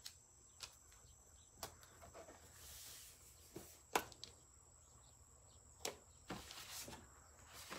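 Faint handling sounds of masking tape, paper and a plastic light box: a few scattered light clicks and taps, the sharpest about four seconds in, with a soft rustle of paper or tape around three seconds and again near the end.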